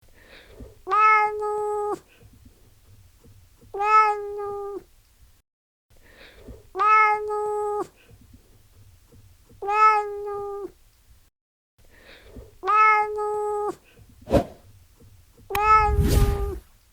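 Domestic cat meowing, six near-identical meows each about a second long, spaced about three seconds apart. A short thump and a low rumble come in near the end.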